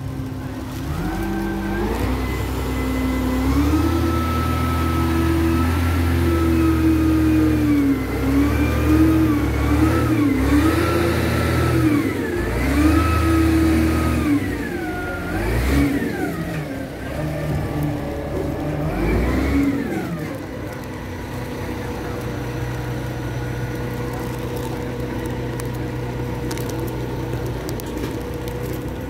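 Truck engine revving up and down several times, then settling to a steady idle about twenty seconds in.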